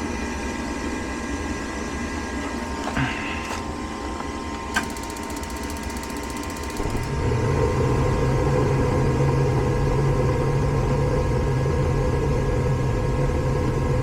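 Gas furnace starting up: the inducer fan motor running steadily, a sharp click about five seconds in with a couple of seconds of fast faint ticking, then the burners lighting about seven seconds in with a steady low rush of flame that holds on.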